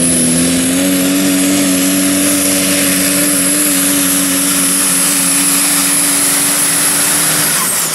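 Super stock diesel pulling truck running flat out under load as it drags the sled, its engine note steady and loud with a high whistle over it. The engine note and the whistle both fall away near the end.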